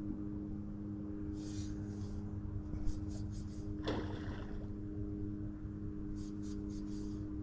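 Spinning reel cranked in short bursts, a high whirring rasp every second or two, over a steady low hum. A single sharp knock about four seconds in.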